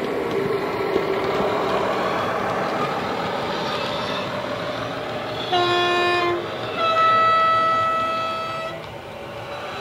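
DCC sound decoder in a model Class 21 diesel locomotive, played through a small EM1 speaker: the diesel engine sound, recorded from a German diesel-electric with the same engine, runs throughout, its note falling in the first couple of seconds. Over it the two-tone horn sounds, a short low note then a longer high note.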